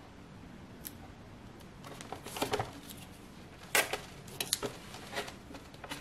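Painter's tape being pulled off the roll and pressed down onto a board: a few short, crackling rips, loudest about four seconds in.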